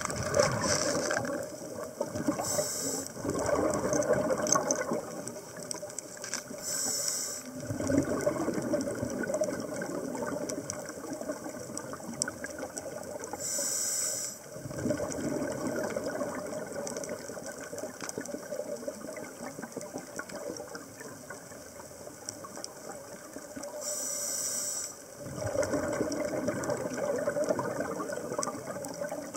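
A scuba diver breathing through a regulator underwater: four breaths, each a short hissing inhale followed by a few seconds of bubbling exhale.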